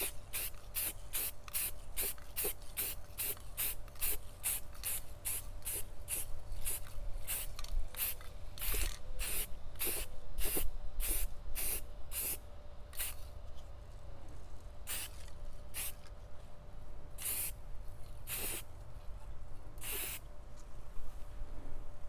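Aerosol spray paint can hissing in many quick short bursts, two or three a second. In the second half the bursts become fewer and longer, spaced a second or two apart.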